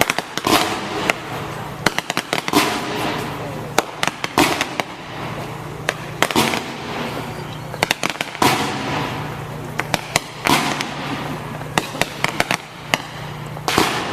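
Fireworks display: a continuous string of sharp bangs and crackles, some coming in quick clusters, with hazy bursts that trail off between them.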